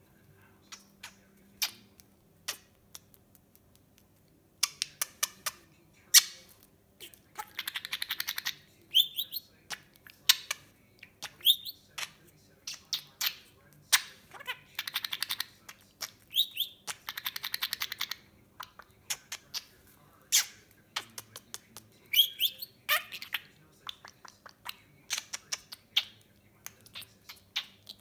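Pet budgerigar chattering: short rising chirps and several rattling bursts of about a second each, among many sharp beak clicks as it nibbles at a fingertip.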